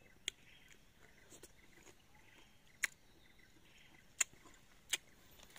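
A few sharp, close mouth clicks and lip smacks from eating a small wild mango, spaced a second or more apart, over a faint outdoor background.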